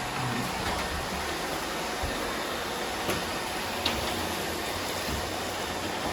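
Several Roomba robot vacuums running at once, sweeping up dry rice spilled on the floor: a steady whirring hiss with a few small knocks about two, three and four seconds in.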